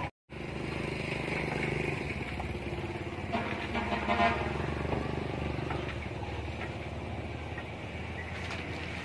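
A motor vehicle engine running steadily, with a brief pitched, horn-like sound about three and a half seconds in. The sound cuts out for a moment at the very start.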